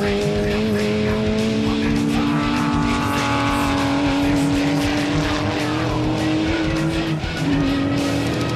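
Racing saloon cars' engines running at speed around a circuit, mixed with background music that has a steady beat.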